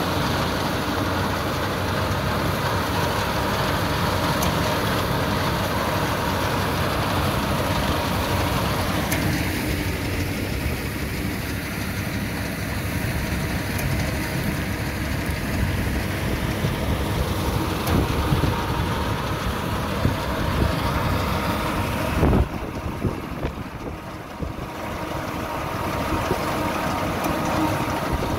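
Tractor engine running steadily while driving a Yapel DG-140 reaper-binder through its power take-off as it cuts wheat: a continuous mechanical noise. The noise thins a little about nine seconds in, and there is a sharp knock with a brief drop in level a little past twenty-two seconds.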